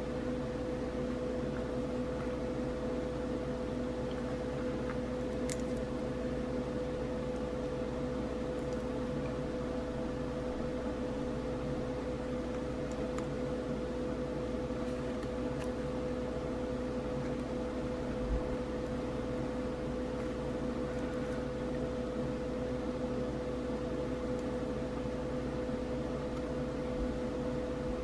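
Steady machine hum with a constant mid-pitched tone, with a few faint ticks and a soft low thump about two-thirds of the way through.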